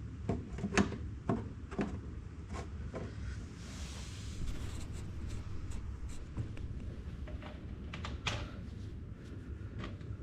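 Scattered light knocks and clunks of things being handled and set down, with a brief soft rushing rustle about four seconds in.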